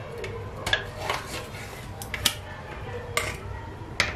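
Metal tuna cans being handled and their ring-pull lids pulled open: a handful of sharp metallic clicks and clinks, about five in four seconds.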